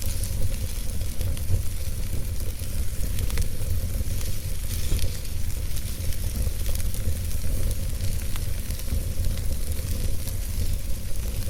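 Logs burning in a wood fireplace, crackling with many small, irregular pops over a steady low rumble of the flames.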